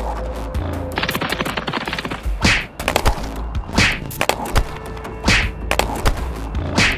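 Cartoon sound effects over background music: a fast clatter of clicks and knocks, with four short swishes about a second and a half apart.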